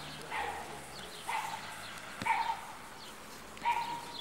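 A dog barking four times at intervals of roughly a second.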